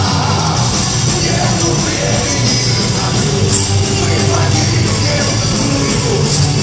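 Live heavy metal band playing loud: distorted guitars and drums, with cymbals struck about four times a second.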